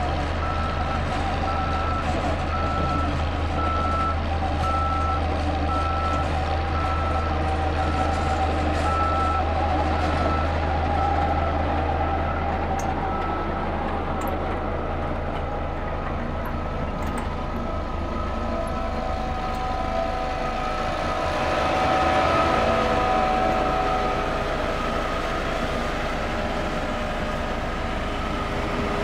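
Diesel road rollers working a road bed, engines running steadily under load. A reversing alarm beeps at an even pace through the first half, then stops.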